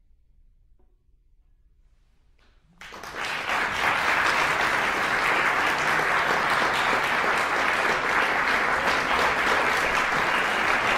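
A hushed pause, then audience applause breaks out about three seconds in and builds within a second to steady clapping.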